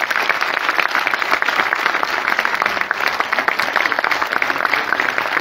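Audience applauding: many people clapping together, dense and steady.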